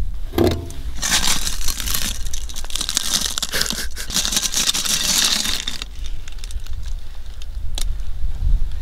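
Crinkly rustling and handling noise as a hot pot of baked pilaf is turned over onto a plate with fabric oven mitts and lifted off, with a short knock just after the start and a steady low rumble underneath.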